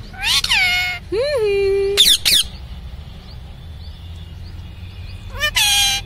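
Indian ringneck parakeet calling: two drawn-out calls in a row, then two short sharp squawks about two seconds in, a pause, and another drawn-out call near the end.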